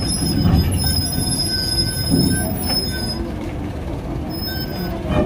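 Loaded truck rolling down a ferry's steel loading ramp onto metal dock grating: engine rumble under thin, steady high-pitched squealing, with a single clank about two and a half seconds in.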